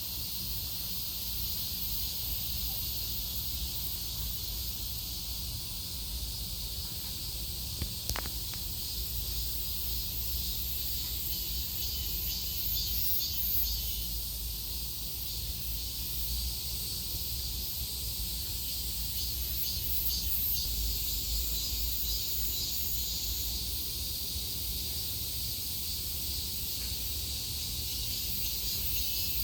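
A chorus of cicadas singing: a steady, high, hissing drone, over a low steady rumble, with a single click about eight seconds in.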